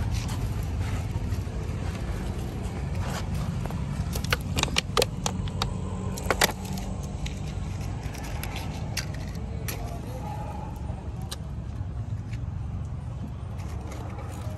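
A steady low rumble, with a quick run of sharp clicks and clinks about four to six seconds in.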